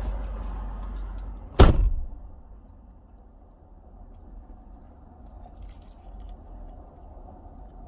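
A car door slams shut about one and a half seconds in. Afterwards a low, steady hum stays in the closed car.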